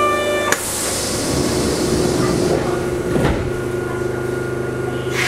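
Kintetsu 3200 series train standing at a subway platform before departure: a held tone cuts off at a sudden thud about half a second in, followed by a hiss of air that fades over a couple of seconds, typical of the doors shutting. A steady hum of the car's equipment runs underneath, with another knock about three seconds in.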